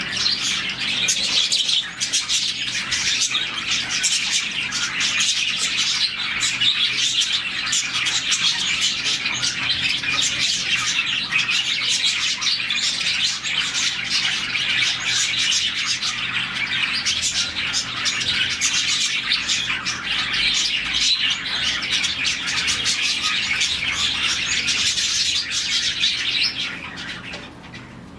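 A large colony of budgies chirping all at once, a dense, continuous chatter of many overlapping high calls. It dies down near the end.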